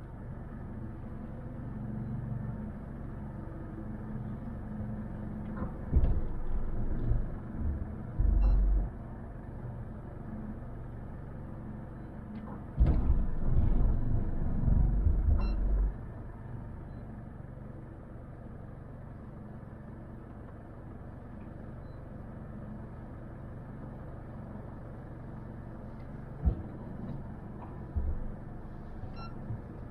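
Boat engine running steadily at low speed, a low hum, broken by several louder low thumps or buffets, the longest lasting about three seconds near the middle.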